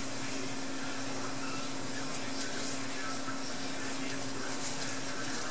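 A steady hum on one pitch over an even hiss: background machine or room noise, with nothing else standing out.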